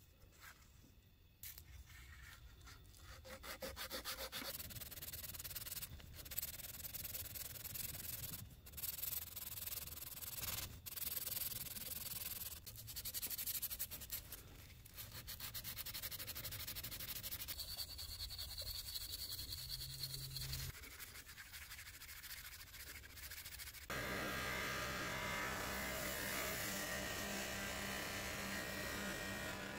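Hand sanding of a small brass ring part with a blue abrasive: irregular scratchy rubbing strokes on metal. Near the end a bench buffing wheel runs steadily as the part is polished against it.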